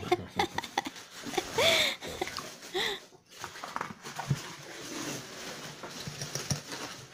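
Packaging being handled while a slow cooker is unboxed: rustling and light knocks, with two short squeaky sounds about two and three seconds in.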